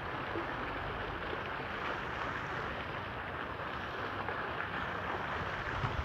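Water jets of a small garden fountain splashing steadily into the basin.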